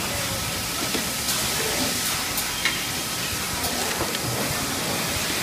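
Plastic-sheet thermoforming line running: a steady hiss of air and machine noise, broken by sharp clicks and knocks about once a second.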